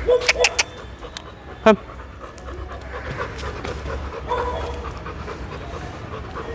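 A dog panting while walking on a leash. There are a few sharp clicks in the first half second and one brief high-pitched sound about two seconds in.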